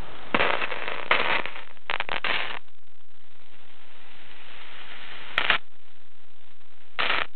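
Lightning static on a Tandberg transistor radio tuned to the AM band: sudden crackling crashes over a steady hiss, each one the radio picking up a lightning discharge. A cluster of crashes comes in the first two and a half seconds, then a short one past the middle and another near the end.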